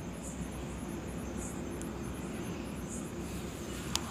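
High insect chirping, repeated several times a second, over a steady low background hum, with one sharp click just before the end.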